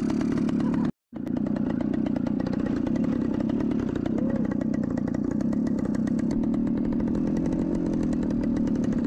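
A small engine running steadily at a constant speed, with a fast even pulse. It drops out for an instant about a second in, then carries on unchanged.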